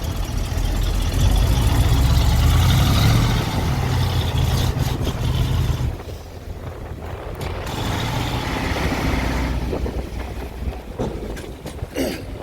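Heavy diesel vehicle engine running hard with a deep rumble, then easing off sharply about six seconds in, picking up again briefly a couple of seconds later before settling lower.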